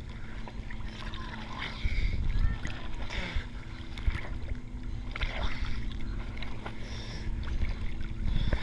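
Small sea waves slapping and splashing around a camera held at the waterline, a splash every second or two, over a steady low rumble of moving water.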